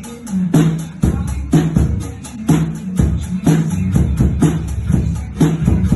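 Acoustic drum kit played in a steady groove: fast hi-hat strokes with a heavier drum hit about once a second, over a backing track with bass notes.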